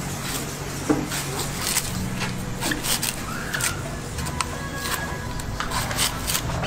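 Large knife blade slicing and striking the husk of a green coconut on a wooden block: a run of short, sharp cuts at an irregular pace of about two a second, over a steady low hum.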